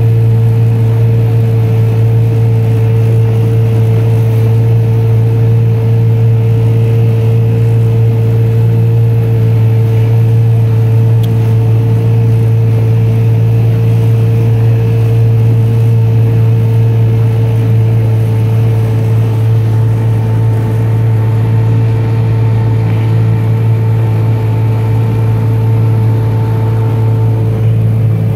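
Small boat's motor running steadily at cruising speed, a constant, even drone that holds one pitch throughout.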